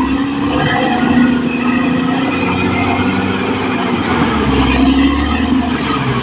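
Caterpillar D6R XL bulldozer's diesel engine running loud and steady, its note rising and falling a little over a heavy rumble.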